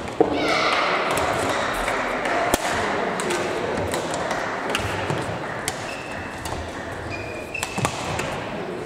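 Badminton rally: sharp racket strikes on the shuttlecock, some from neighbouring courts, with a few short squeaks of shoes on the court floor, over the steady murmur of a large sports hall.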